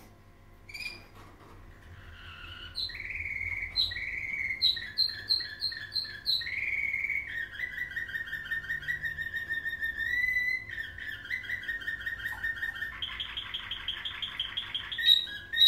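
Domestic canary singing a long, unbroken nightingale-style song made of changing phrases: clear whistled notes, quick repeated chirps and fast trills, with a short rising glide about ten seconds in and a rapid rolling trill near the end.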